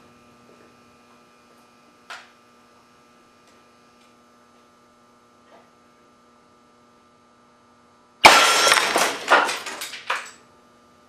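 A spool valve air cannon fires a lead slug at 300 psi about eight seconds in: a sudden loud shot, followed by about two seconds of clattering and rattling from the slug striking the target. A faint steady hum lies under the quiet part before it.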